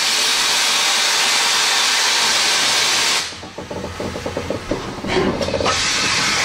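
Ivatt Class 2MT 2-6-2T steam tank locomotive moving off: a steady, loud hiss of steam from the open cylinder drain cocks, which gives way about three seconds in to quick pulses of steam and chuffs as the engine gets under way, with the hiss swelling again near the end.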